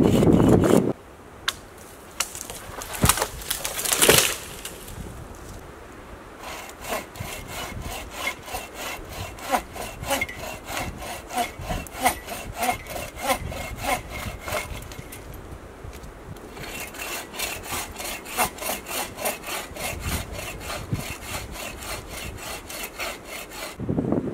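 Folding hand saw cutting through a dead fallen branch in quick, regular back-and-forth strokes, in two long spells with a short pause between them. A couple of sharp knocks come before the sawing starts.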